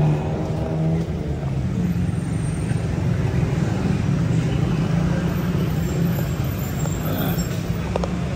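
Road traffic: a motor vehicle's engine running steadily nearby, a low drone over general street noise.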